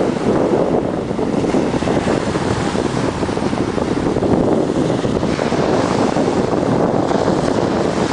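Wind buffeting the microphone over small waves breaking and washing up a pebble beach, a steady, loud rush of noise.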